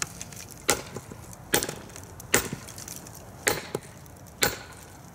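The steel extended tang of a TOPS Bushcrafter Kukuri 7 kukri being used as a hammer on a chunk of cinder block resting on a wooden stump. Short swings give five sharp knocks, about one a second, with a weaker knock just after the fourth, as it tries to break pieces off the block.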